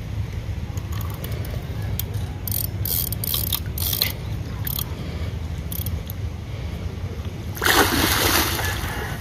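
Water splashing hard for about a second near the end, after a few short lighter splashes and clicks, over a steady low rumble.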